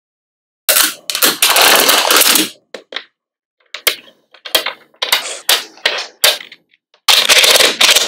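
Small magnetic balls clicking and rattling against each other as they are handled and snap into place, in quick bursts of sharp clicks separated by short pauses.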